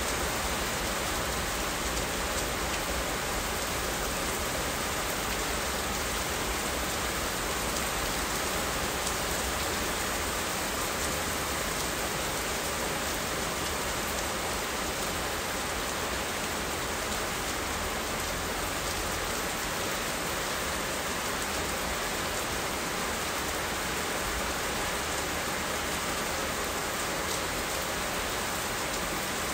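Steady rainfall, an even, unbroken hiss.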